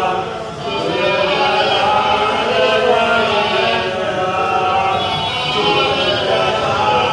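Devotional chanting: voices sing a religious recitation in long, held melodic lines without pause.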